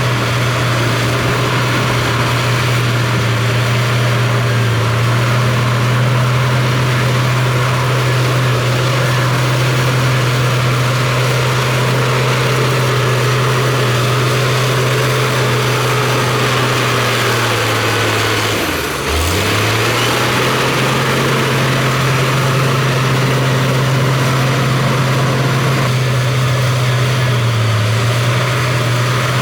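Heavy earthmoving machine's diesel engine running steadily at work. Its pitch sags briefly a couple of times and drops sharply about two-thirds of the way through before climbing back.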